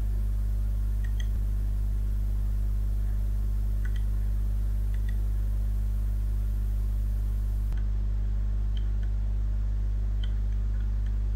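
Steady low electrical mains hum from the recording setup, with a few faint scattered clicks.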